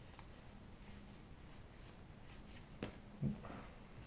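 Trading cards being handled and laid on a playmat: quiet card rustling with two short clicks about three seconds in as cards are set down, over a faint low steady hum.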